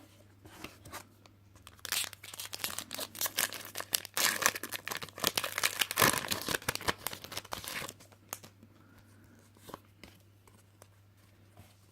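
Foil wrapper of a Pokémon card booster pack being torn open and crinkled, a dense crackling from about two seconds in until about eight seconds in, then a few faint ticks.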